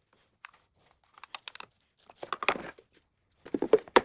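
Packaging being handled and pulled apart: crinkling and tearing in several short bursts with small clicks between, loudest about two and a half seconds in and again near the end.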